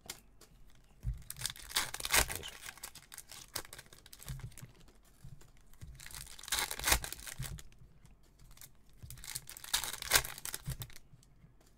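Foil wrappers of Topps Chrome Bundesliga trading-card packs being torn open and crinkled, in a few separate rustling bursts, the loudest about 7 and 10 seconds in, with cards shuffled in between.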